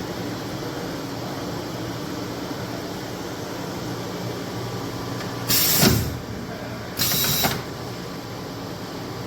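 Steady hum of a CNC Swiss lathe and its magazine bar feeder running, broken by two short, loud bursts of hissing noise about five and a half and seven seconds in, each lasting about half a second.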